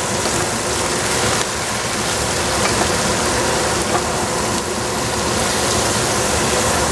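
Spinach, egg and shiitake sizzling steadily in hot oil in a frying pan while two wooden spatulas toss them.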